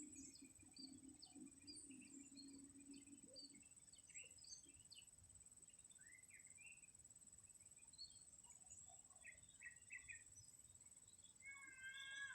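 Faint morning birdsong: many small birds giving short, scattered chirps, over a steady high-pitched whine. Near the end a louder, drawn-out call with several pitches starts.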